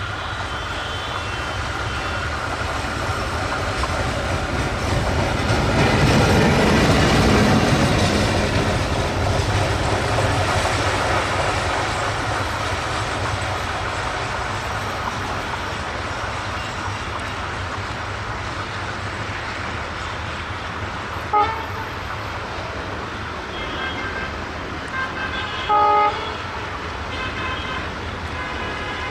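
ALCO 251-C sixteen-cylinder diesel of a WDM-3A locomotive running as the engine passes close, swelling to its loudest about seven seconds in and then fading slightly. Near the end the locomotive's horn sounds twice: a brief toot, then a slightly longer blast a few seconds later.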